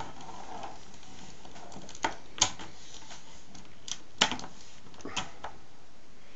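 Hard plastic parts of a transforming Megazord toy clicking and clacking as the figure is handled and posed: a handful of separate sharp clicks, the two loudest just under two seconds apart.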